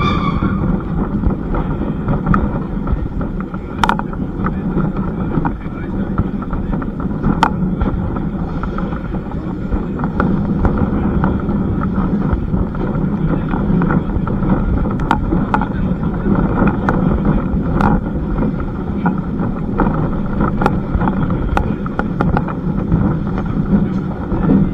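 Heritage train running along the line: a steady low rumble with scattered sharp clicks.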